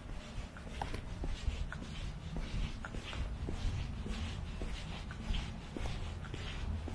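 Footsteps of a person walking at a steady pace, about two steps a second, over a steady low rumble.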